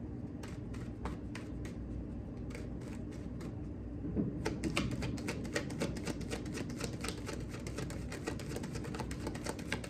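Tarot deck being shuffled by hand: a few scattered card clicks at first, then a fast run of dense clicking from about halfway through.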